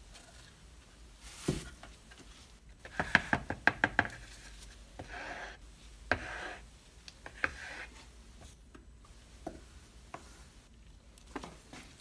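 Paint can and plastic mixing cup being handled: a fast run of six or so sharp knocks about three seconds in, then a wooden stir stick scraping and knocking against the plastic cup as grey paint is stirred.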